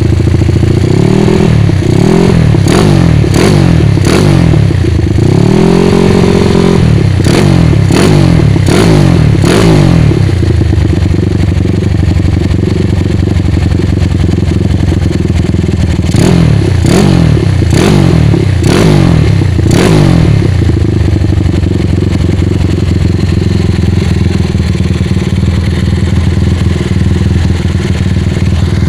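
Single-cylinder four-stroke motorcycle engine fitted with a semi-touring, daily-use camshaft, running through an aftermarket slip-on muffler. It idles steadily and is blipped in quick revs, a run of them in the first ten seconds with one held a little longer, then another run of four or five blips about halfway through before it settles back to idle.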